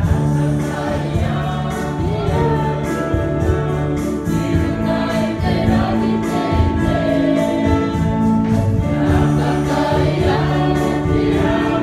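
A group of voices singing a hymn together, with guitar accompaniment.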